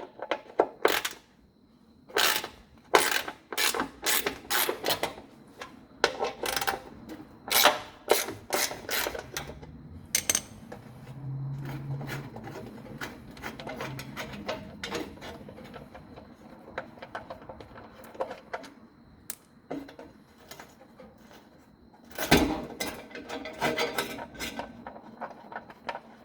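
Hand tools working the lower fender bolts: irregular metallic clicks and clanks like a ratchet and wrench loosening bolts. There is a faint low hum about halfway through, and a fresh burst of clicking near the end.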